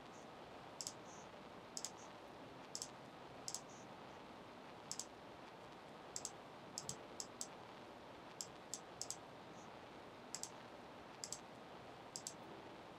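Computer mouse buttons clicking irregularly, about one or two clicks a second and several in quick pairs, over a faint steady hiss of room tone.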